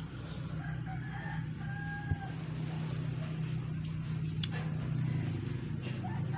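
A rooster crowing once in the background, a long pitched call about a second in, over a steady low hum. A single sharp click about two seconds in.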